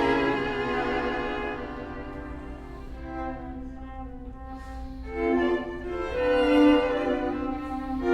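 Classical music for bowed strings. A low held note sounds throughout, and new, louder notes enter above it about five seconds in.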